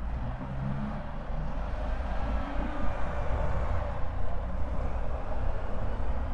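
City street traffic: vehicle engines and tyre noise passing, over a steady low rumble.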